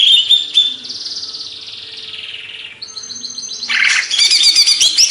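Cucak ijo (green leafbird) singing: a few short loud notes, then a long buzzy warble that fades, then a rapid, loud run of chattering notes from about three and a half seconds in.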